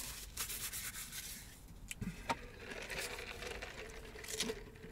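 Paper napkin being rubbed between the hands to wipe greasy fingers, a dry scratchy rustle for the first second and a half, then a sharp click a little after two seconds and fainter handling noises.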